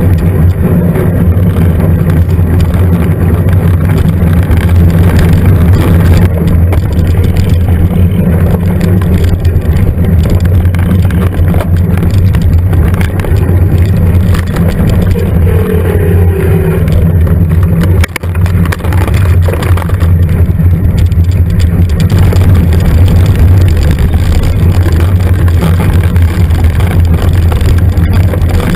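Loud, steady low rumble of wind and trail vibration picked up by a GoPro camera riding on a mountain bike over dirt forest tracks.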